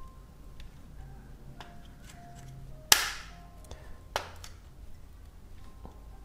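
Sharp plastic clicks of instrument-cluster gauge stepper motors snapping into their mounts: a loud click about three seconds in, another just over a second later, and a few faint ticks of handling around them.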